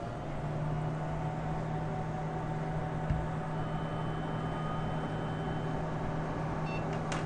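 IGT AVP slot machine cabinet powering back up: a steady low hum with fan noise comes on just at the start, with a faint click about three seconds in and a sharper click near the end.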